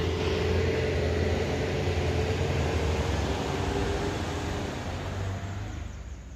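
Engines of vehicles on a steep uphill road: a diesel box truck running steadily together with a passing car, the sound dying away near the end.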